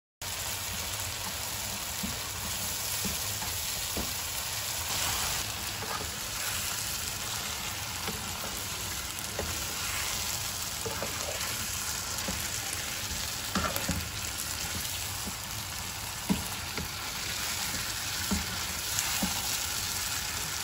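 Curry sauce sizzling steadily in a non-stick pan, with scattered knocks and scrapes, sharpest in the second half, as raw chicken pieces are added and stirred into it.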